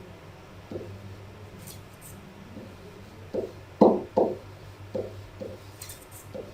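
Several soft, short knocks or taps at uneven intervals, the loudest two close together about four seconds in, over a faint steady low hum.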